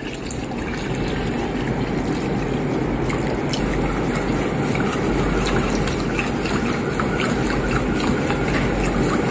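Water poured from a glass jug into a stainless saucepan over a butter-and-flour roux, then whisked in with a wire whisk: a steady liquid sloshing and stirring with many small ticks of the whisk against the pan.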